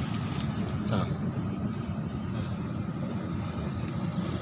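Wind buffeting the microphone, a steady low rumble, with a faint voice about a second in.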